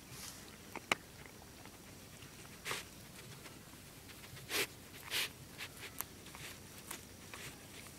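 German Shepherd puppy taking treats close to the microphone: a few short scattered noises and sharp clicks, the loudest two a little past halfway, over a faint background.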